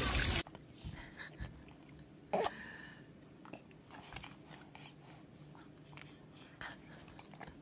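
A brief loud burst of splashing water cuts off abruptly, then close, quiet sounds of a baby at a water-filled play mat: breathing, one short vocal sound about two and a half seconds in, and faint scattered taps.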